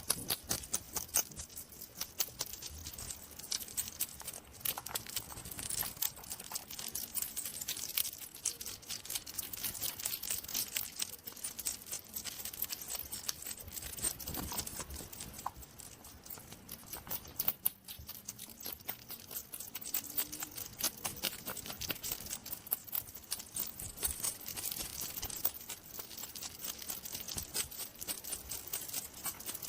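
Hedgehog sounds: a dense, continuous run of small quick clicks and crackles.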